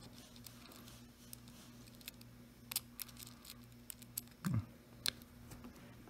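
Light, scattered metal clicks and taps of a screwdriver working a small screw into a wire terminal post inside a hair clipper's switch housing, with a duller knock of handling about four and a half seconds in.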